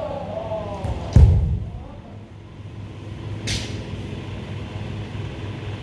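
Kendo practice sounds: a drawn-out kiai shout tails off just after the start. About a second in comes a loud stamping thud on the wooden floor with a strike, and a sharp crack of bamboo shinai partway through, over a steady low hum.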